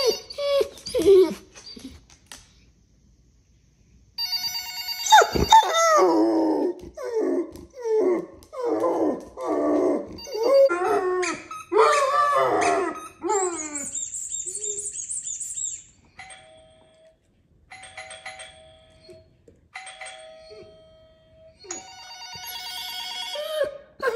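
Electronic sound effects from a tablet speaker, ringing tones and doorbell-like chimes. A yellow Labrador retriever howls along to them, long howls that waver up and down for several seconds in the middle. Later come a high whistling tone and a run of short chimes.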